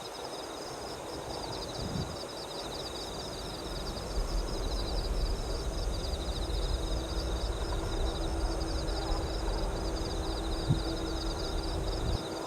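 Low rumble of a Boeing 747-400ERF freighter's jet engines as it approaches to land, building about four seconds in, with a steady hum joining about halfway. Insects chirp constantly in a fast, high trill throughout.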